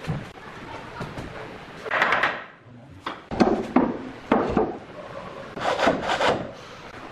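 Rubbing and scraping on hardwood stair boards as they are handled and fitted against a step: four or five short scrapes with a few light knocks between.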